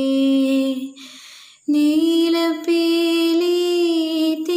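A girl singing a devotional song solo, with no accompaniment, in long held notes. She breaks off about a second in for a quick breath, then comes back in on a higher sustained note.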